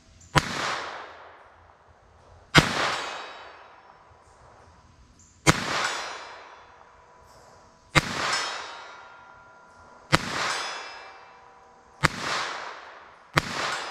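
Seven shots from a Beretta Bobcat 21A .22 LR pocket pistol, fired about two seconds apart with the last two closer together. Each shot is sharp and trails off in a long echo.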